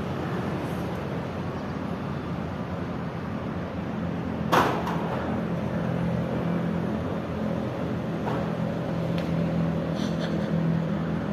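A steady low mechanical hum with a single sharp crack about four and a half seconds in.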